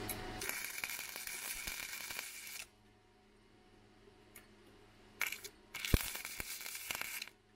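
MIG welder striking tack welds on steel: two bursts of crackling, hissing arc about two seconds each, with a brief spurt just before the second.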